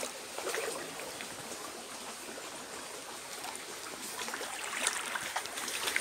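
Shallow stream flowing and trickling over a stony bed, with a few short, sharp sounds near the end.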